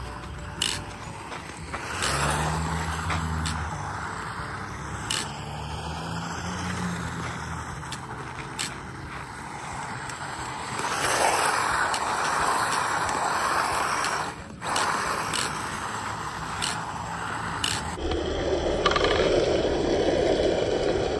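Tamiya XV-01 electric 1/10-scale RC rally car sliding and spinning on loose dirt, its tyres scraping and scrabbling through the surface. It is loudest about eleven seconds in and again near the end as it spins close by, throwing up dirt.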